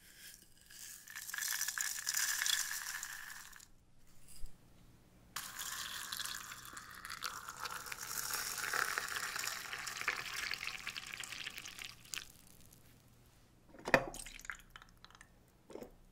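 Hot water poured from a glass kettle onto loose tea leaves in a glass teapot's infuser, a steady splashing pour lasting several seconds, with a shorter hiss before it. About two seconds after the pour stops there is one sharp glass clink, the loudest sound, then a faint click.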